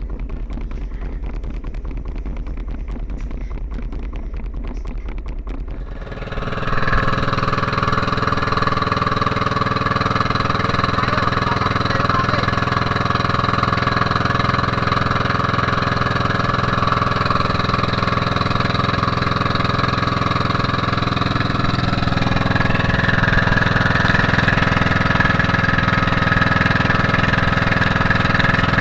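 Small boat engine running steadily as an outrigger banca travels under way, comes in abruptly about six seconds in after a lower rumble, and gets a little louder later on.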